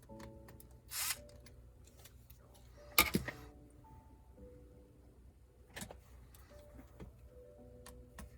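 Soft background music with held notes, over a few sharp clicks and knocks from laptop parts being handled during disassembly. There is one about a second in, the loudest cluster about three seconds in, and another near six seconds.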